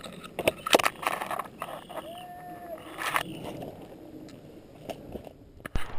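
Rustling of brush and scattered knocks and clicks of gear as the player moves out of the bushes, with a faint distant call about two seconds in.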